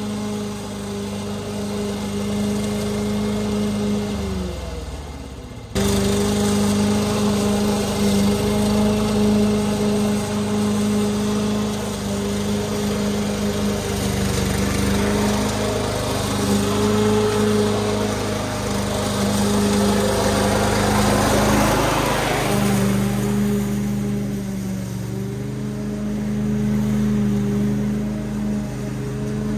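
Masport Contractor walk-behind petrol lawn mower running steadily through overgrown grass. Its engine note sags and drops in pitch around four to five seconds in, then comes back suddenly. A hissing noise swells around twenty seconds in, and soon after the engine note dips briefly before recovering.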